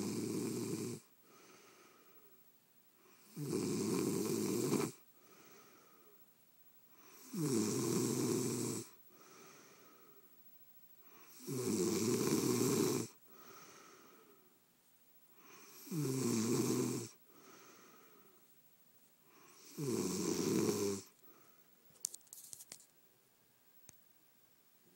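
Snoring: six loud snores about four seconds apart, each followed by a softer breath. The snoring stops near the end, and a few faint clicks follow.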